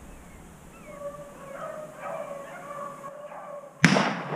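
Beagles baying in pitched, wavering calls as they run a rabbit. Near the end a single loud shotgun shot cracks and echoes briefly.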